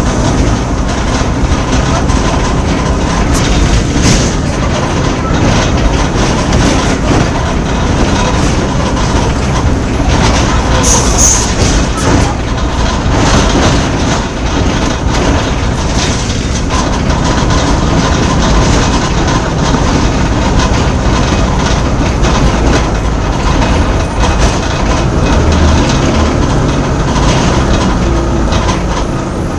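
Mercedes-Benz OF-1418 bus's diesel engine running while the bus is under way, with many short rattles and clicks from the bus body.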